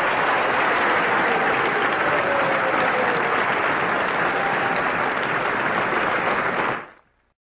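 Audience applauding steadily at the end of a lecture, then cutting off suddenly near the end.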